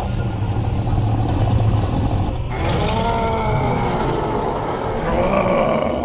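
Deep, gruff monster roars and growls over a low rumble: cartoon sound effects for hulking creatures, with a wavering, pitch-bending roar starting a little before halfway and another near the end.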